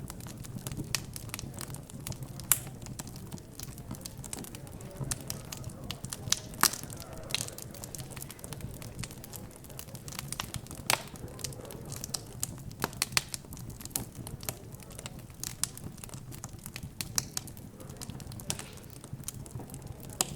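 Wood fire crackling, with irregular sharp pops and snaps, a few louder ones standing out. Under it runs a low murmur of background chatter.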